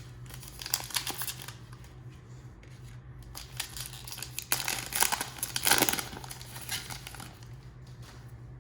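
A plastic trading-card pack wrapper being torn open and crinkled by hand, in a short crackle about a second in and a longer, louder one around the middle, over a low steady hum.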